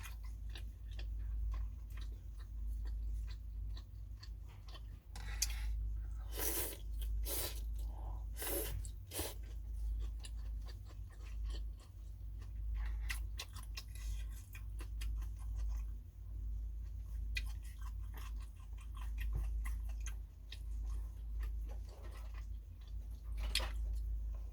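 Close-up eating sounds of phở: chewing with small mouth clicks, several louder noisy sounds about 5 to 9 seconds in and one near the end, over a steady low hum.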